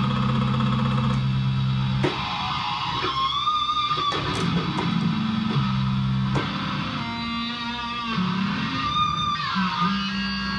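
Electronic dance music played live on keyboard synthesizers: sustained bass notes change every second or two under a guitar-like lead. The lead bends up in pitch a few seconds in and slides down near the end.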